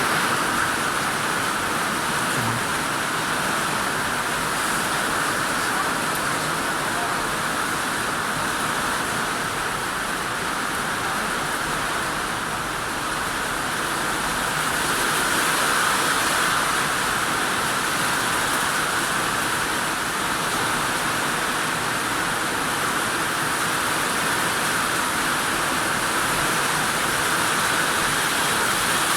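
Heavy rain falling, a steady dense hiss that holds at a fairly even level throughout.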